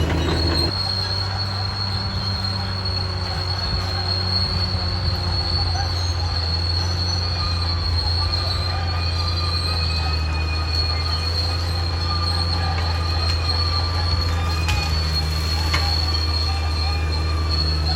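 Caterpillar D6R XL crawler bulldozer working: a steady diesel engine drone under a high, thin metallic squeal from the steel tracks.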